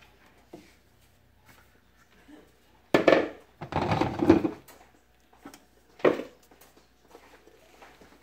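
Clunks and a scrape as a glass flour jar and its scoop are handled on a tile countertop: a sharp knock about three seconds in, a longer scraping, rustling stretch just after it, and another knock about six seconds in.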